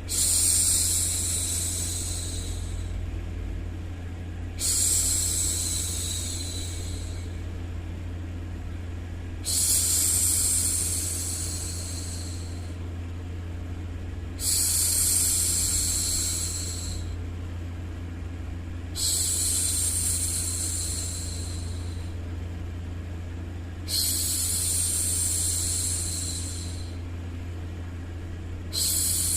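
A woman's long 'shhh' hushes, repeating about every five seconds and each lasting two to three seconds, over a steady low hum of white noise: shushing to soothe a baby to sleep.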